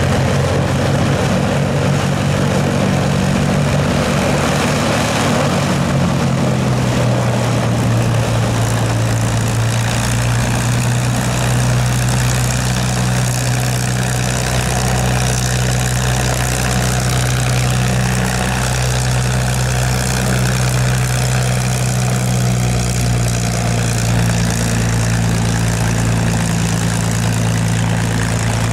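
North American TF-51D Mustang's Packard Merlin V12 engine and propeller running steadily at close range, a low, even drone whose note shifts slightly about six seconds in.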